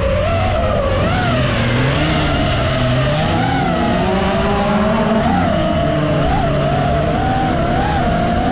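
FPV drone motors whining, the pitch wavering quickly up and down with the throttle, over race car engines revving and rising in pitch underneath.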